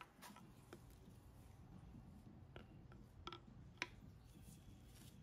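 Near silence with low room tone, broken by a few faint metallic clicks and taps, three of them in the second half, from engine parts being handled by gloved hands.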